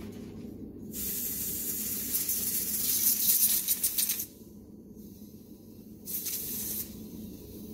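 LPG gas hissing out at the gas filter fitting as pressure is let out of the line: one loud hiss of about three seconds that cuts off suddenly, then a second short hiss near the end.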